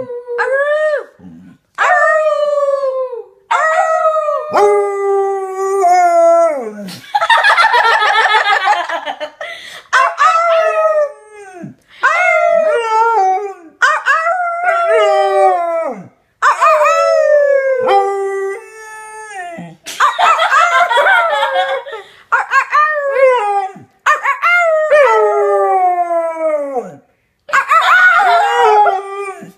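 A dog howling over and over in long drawn-out calls, each sliding downward in pitch, with a few wavering, warbling howls in between.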